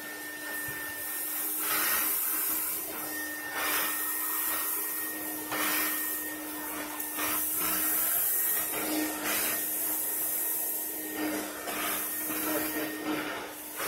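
Roboclean vacuum running with its carpet shampoo nozzle, sucking water back up out of wet carpet. The motor hums with a steady whine, and a rush of air swells and fades every second or two as the nozzle is worked across the carpet.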